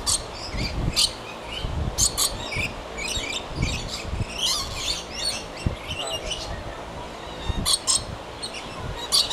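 Small green parrots calling with short, sharp chirps and squawks, in scattered bursts every second or so, several close together near the end.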